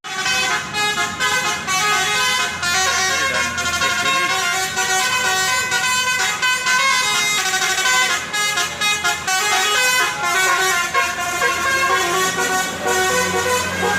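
Basuri 'telolet' multi-tone air horn on a tour bus playing a tune of many changing notes, loud and continuous.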